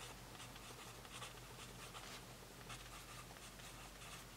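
Faint scratching of a fine writing tip on sketchbook paper as letters are handwritten, in short strokes coming in quick clusters.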